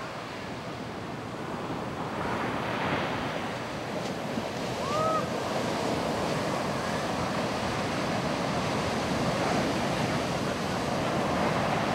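Ocean waves breaking and washing up a beach, with wind on the microphone; the surf grows louder about two seconds in.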